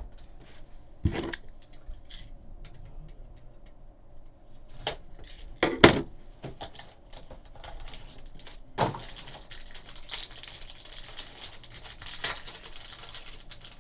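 Cardboard trading card box handled and opened, giving a few sharp knocks and taps, the loudest just before six seconds in. From about nine seconds in comes the steady crinkle of a foil card pack being torn open by hand.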